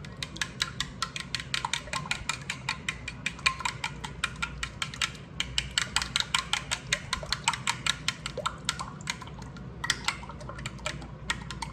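Eggs being beaten in a bowl: a utensil clicking rapidly and steadily against the side of the bowl, about five strokes a second.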